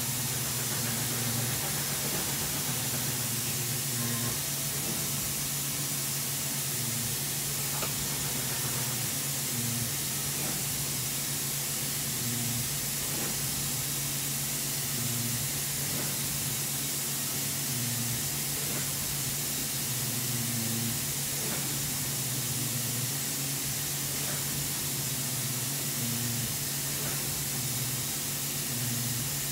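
Mori Seiki MT2000 multi-axis CNC lathe running with a chuck spinning: a steady machine hum that swells briefly every few seconds, with a constant hiss over it.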